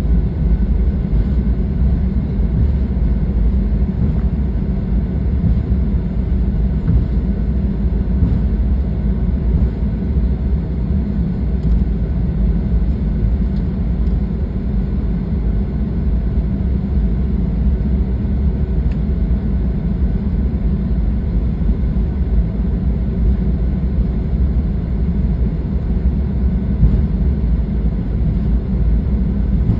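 Steady low rumble inside the cabin of a Boeing 737-800 taxiing before takeoff, its CFM56 turbofans at low taxi power.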